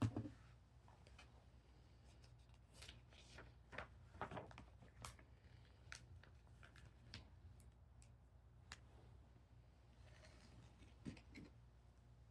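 Faint clicks and rustles of plastic building bricks being handled and pressed together, with a knock at the start and a cluster of sharper clicks about four seconds in.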